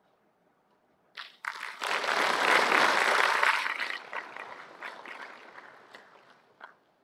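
Audience applauding: clapping breaks out about a second in, swells, then thins out and fades over the next few seconds.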